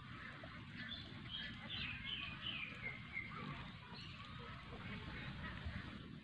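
A flock of ducks quacking, with a run of short calls falling in pitch in the first half, over a steady background hiss.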